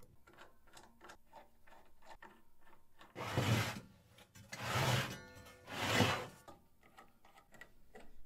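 Faint ticks of a hex driver working M5 screws into the CNC router's gantry plate, then three rubbing, rolling sweeps about a second apart as the aluminium X-axis gantry is pushed back and forth on its roller wheels along the Y-axis rails.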